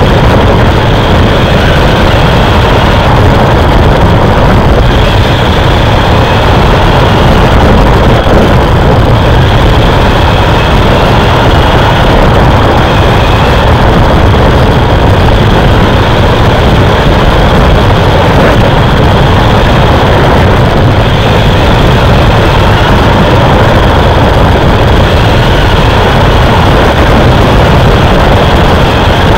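Race vehicle's engine running hard with road and wind noise, loud and unbroken, as picked up by a camera mounted on board; faint pitch lines waver as the engine speed rises and falls through the turns.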